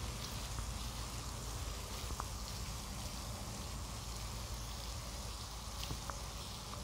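Steady splashing hiss of a floating pond aerator fountain, its spray falling back onto the pond surface, over a low rumble.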